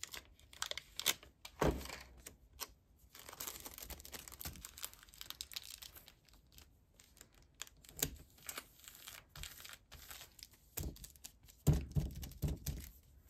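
Clear cellophane sleeves crinkling and rustling in the hands, with a sticker peeled off a paper roll. There are scattered light clicks throughout and a few soft knocks on the table near the end.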